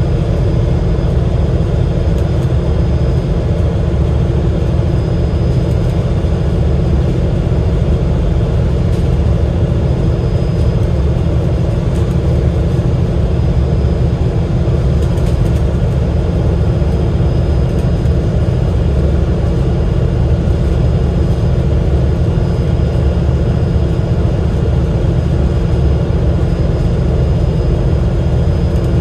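Enviro500 MMC double-decker bus with its Cummins L9 diesel engine running, heard from on board: a steady low drone with a few constant humming tones above it.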